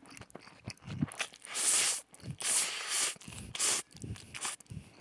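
A person slurping cold spicy mixed noodles (bibim-myeon) in several long, loud slurps about a second apart, with wet chewing and smacking between them.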